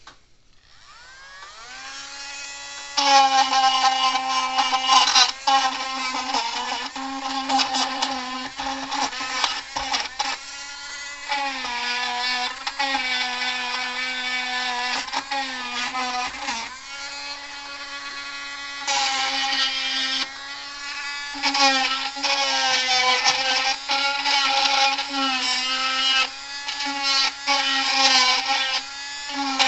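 Cordless Dremel rotary tool spinning up to speed over the first few seconds, then running with a steady high whine whose pitch sags briefly and recovers several times as the bit bears on the fence charger's terminal strip, cleaning tarnished metal contacts.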